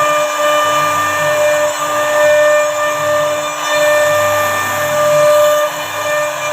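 CNC router spindle running while it cuts wood: a steady hum under a high-pitched whine that breaks off and comes back several times as the bit works through the cut, over a constant hiss of cutting noise.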